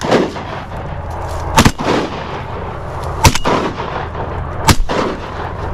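Three shotgun shots about a second and a half apart, each with a short echo.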